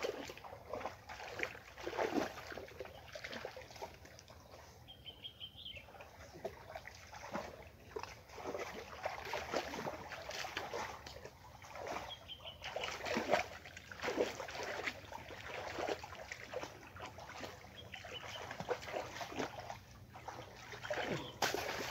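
Shallow muddy water splashing and sloshing irregularly as a person wades and gropes with his hands for catfish. A few short bird chirps come through.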